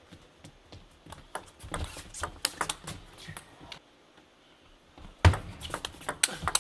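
Table tennis rallies: a quick series of sharp clicks of the celluloid ball striking paddles and the table, pausing for a moment and then starting again, with a loud thump about five seconds in.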